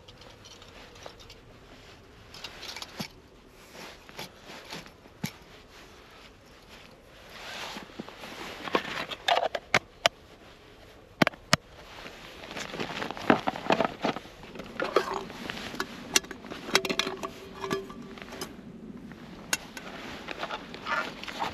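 Camping stove being set up by hand: rustling and handling noise with scattered sharp clicks and knocks, busiest in the middle.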